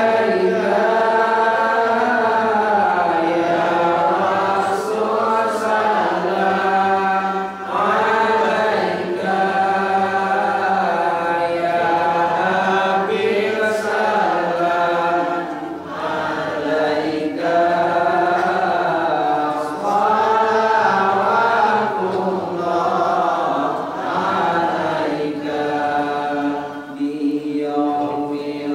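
A man chanting a prayer melodically into a microphone, in long, wavering held notes with short pauses for breath.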